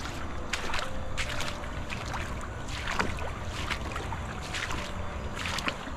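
Footsteps crunching on loose river stones, irregular steps about every half second, over a steady low rumble of wind on the microphone.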